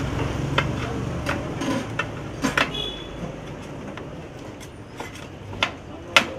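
Metal spatula striking and scraping a large flat metal griddle as fried chicken pieces are chopped: irregular sharp clanks, sometimes two in quick succession, over a low background hum.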